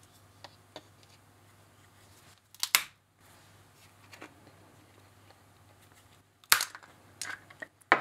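Glued plastic case of a Monoprice 40W USB-C power adapter cracking as it is squeezed in tongue-and-groove pliers: a sharp crack a little under three seconds in, another loud crack about four seconds later, then a few lighter clicks as the seam splits open.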